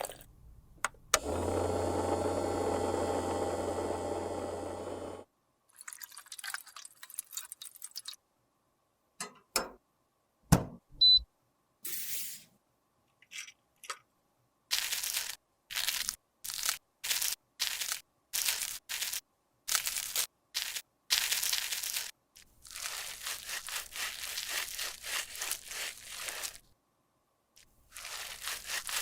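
Close-up ASMR handling sounds of makeup being worked: a steady hum for a few seconds near the start, scattered clicks and taps, then a long run of short scraping or crushing strokes, about two a second, and a stretch of crackly crunching.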